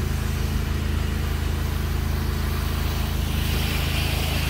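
The engine of a pressure-washing rig drones steadily at a constant speed. About three and a half seconds in, the hiss of a low-pressure rinse spray hitting vinyl siding joins it.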